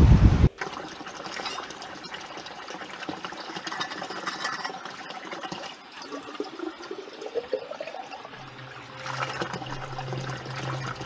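Wind buffets the microphone for the first half second, then cuts off. Water runs from a spring spout into a plastic bottle, its pitch rising as the bottle fills.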